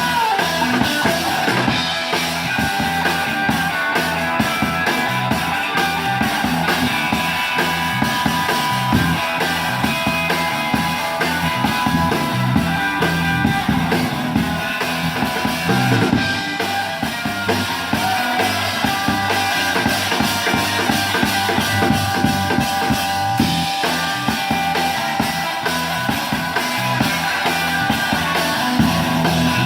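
Rock band playing, the drum kit's bass drum and snare keeping a steady beat under sustained guitar-like tones.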